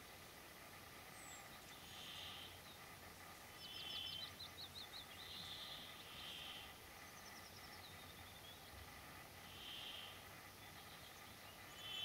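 Woodlark singing faintly over steady background hiss. It gives short phrases, including a run of repeated slurred notes about four seconds in and a falling series of notes a few seconds later, with short buzzy notes in between.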